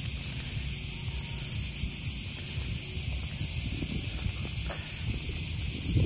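Steady high-pitched chorus of insects, with wind rumbling on the microphone underneath.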